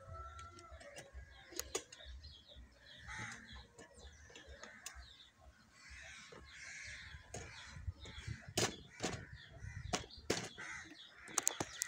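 Crows cawing repeatedly, with a few sharp knocks in the second half.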